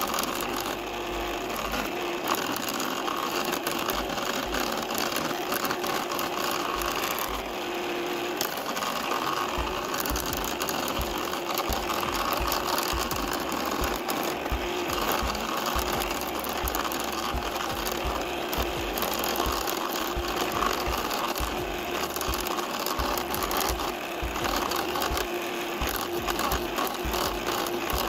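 Benchtop electric cardboard saw (Chompshop Chomp Saw) running steadily, its small reciprocating blade buzzing as it cuts through corrugated cardboard pieces fed around it.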